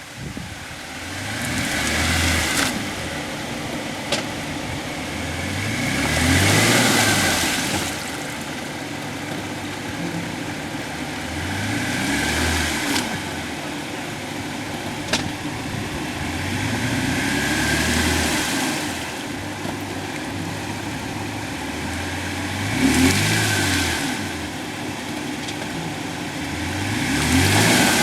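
Off-road SUV engine revving up and falling back about six times, roughly every five seconds, as the vehicle works through deep mud. Each rev comes with a broad rush of noise.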